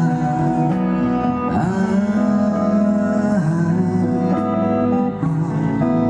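Live acoustic and electric guitars playing a pop song, amplified for street busking.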